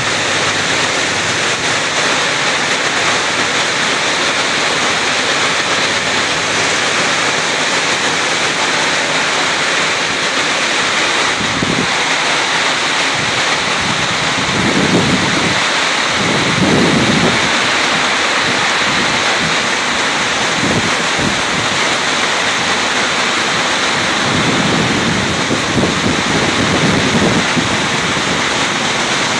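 Heavy rain pouring down in a steady, dense hiss. Several low rumbling swells come and go in the second half.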